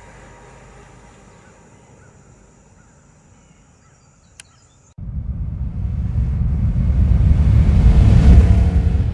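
The 1983 Porsche 944's four-cylinder engine fades as the car drives away. About five seconds in, a loud, deep rumbling sound effect for the logo starts suddenly and swells to a peak shortly before the end.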